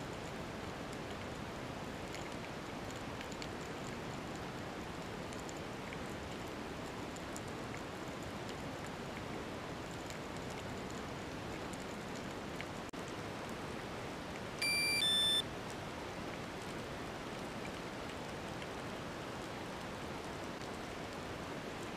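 Underwater ambience heard through a camera housing: a steady hiss with faint scattered clicks. About two-thirds of the way through come two short electronic beeps, the second lower in pitch.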